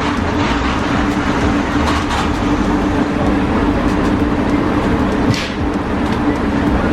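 Steady, loud low drone of a gun range's background noise, with two short, muffled cracks of gunfire about two seconds in and just past five seconds.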